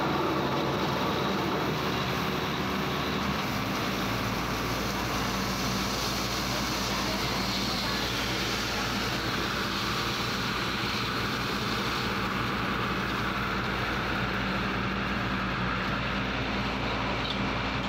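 Borewell drilling rig running, with wet rock cuttings and dust being blown up out of the bore around the drill pipe: a loud, steady, dense noise with a low machine hum beneath it.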